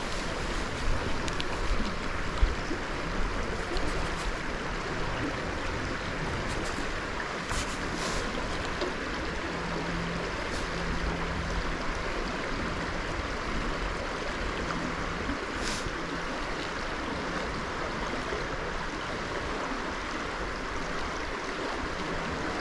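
Creek water flowing and rushing steadily, with a few faint clicks about a third of the way in and again past the middle.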